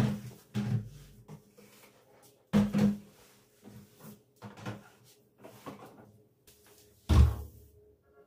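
A series of knocks and bumps from household objects being handled and set down during cleaning. There is a double knock a little under 3 s in and a heavier, deeper thud about 7 seconds in, with lighter taps between.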